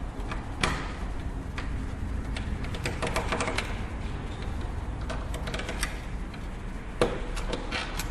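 Small clicks and ticks of a Phillips screwdriver working screws out of a PlayStation 3's casing, in scattered clusters, with one sharper knock about seven seconds in.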